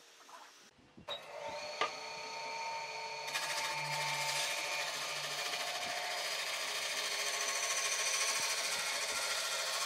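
An electric power tool starts about a second in and runs steadily with a high whine. It gets louder at about three seconds, as if it has begun cutting into the work.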